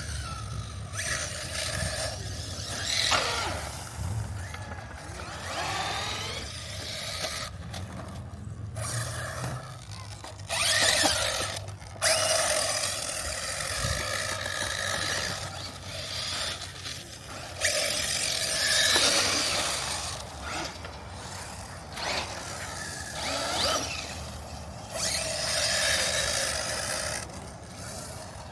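Traxxas Mini Maxx RC monster truck driving, its brushless electric motor whining up and down in pitch with each burst of throttle, over tyre and ground scrape.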